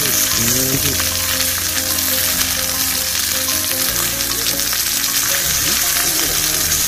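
Beef sirloin steak sizzling steadily as it sears in a hot cast-iron pan.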